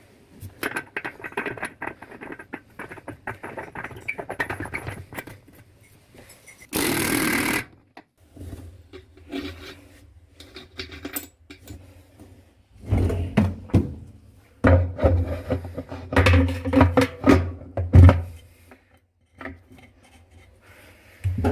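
Hands and tools working on washing-machine parts: clicking and scraping, one loud second-long hiss-like burst near a third of the way in, then several seconds of stop-start runs with a low hum in the second half.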